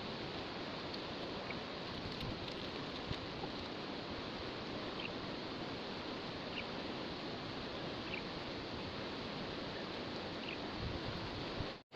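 Steady rushing of a river running high after a flood, with a few faint short chirps over it. The sound drops out abruptly for a moment near the end.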